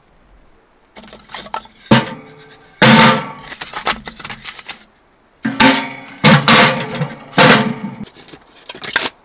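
Split firewood being loaded into a KingCamp tent stove's metal firebox: several sharp wooden knocks and clatters as the logs strike the steel grate and walls, each ringing briefly.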